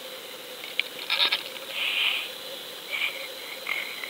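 Sound picked up by an underwater camera in its housing: a steady hiss with a constant high whine, broken by a few short clicks and brief scraping bursts, about a second in, around two seconds and again near three seconds.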